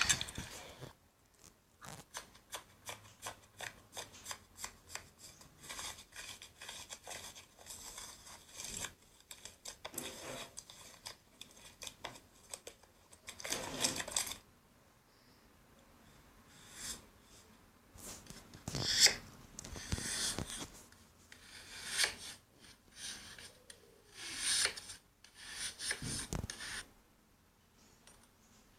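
Slime being handled: a run of small crackling clicks, a couple a second, for the first several seconds, then scattered louder crunchy, rubbing squishes with quiet gaps between.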